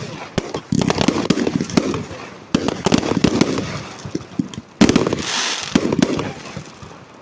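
Fireworks display: rapid bangs and crackling, with fresh volleys about one, two and a half and five seconds in, each fading away after.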